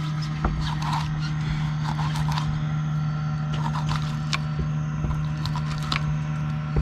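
A steady low machine hum runs throughout, with scattered light clicks and scrapes from a knife slicing fish on a board.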